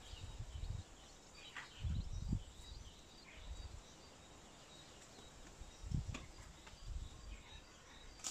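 Faint garden ambience: birds chirping in the background, with a few irregular low rumbles and thumps.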